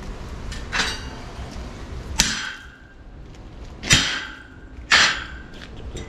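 Four sharp metal-on-metal knocks, the last three louder and each ringing briefly afterwards, as steel parts are struck or knocked together.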